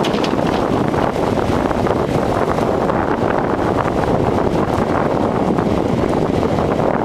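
Bobcat compact excavator running hard with its hydraulic breaker hammering into the boat house's concrete deck slab, a steady rapid pounding over the engine.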